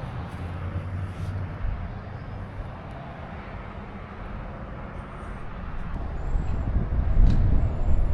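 A motor vehicle running, a steady low hum, with a rumble of wind on the microphone building over the last couple of seconds.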